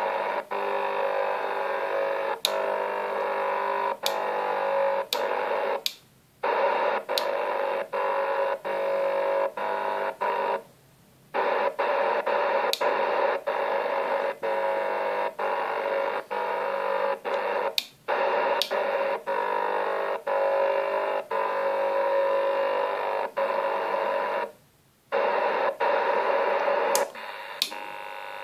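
Strange steady buzzing noise, with several held tones inside it, heard from a radio receiver tuned near T5. It is broken by frequent sharp clicks and cuts out briefly three times.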